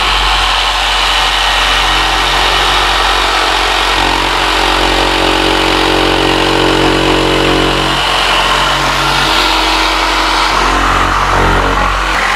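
Corded jigsaw running steadily, its blade cutting a circular drain hole through an OSB subfloor. The motor tone shifts in pitch a few times as the cut goes on.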